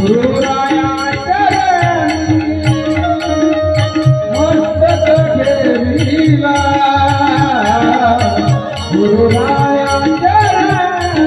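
Marathi devotional kirtan singing: a solo voice holding long, ornamented notes that glide up and down, over a steady held drone, a hand drum and small hand cymbals ticking in a steady rhythm.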